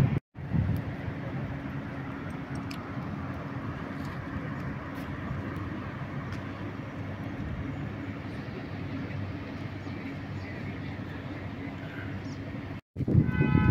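Steady hum of distant city traffic with a faint low drone underneath. It drops out briefly twice, just after the start and near the end.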